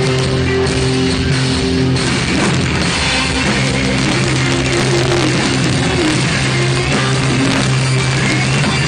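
A live rock band playing loud, with electric guitars holding low chords that change every second or two over a drum kit.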